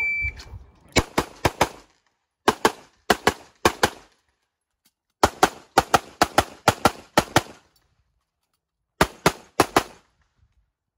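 Electronic shot timer's start beep, then a pistol fired in fast strings of shots during an IPSC stage: four groups of rapid shots, about four, six, ten and three, with short pauses between them as the shooter moves to new positions.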